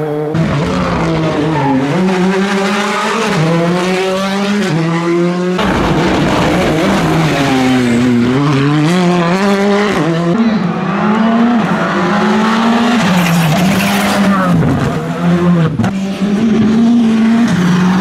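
Rally2 cars driven flat out on a tarmac stage, several in turn. Their turbocharged four-cylinder engines are revving hard, the note climbing and dropping with each gear change and each lift for the bends.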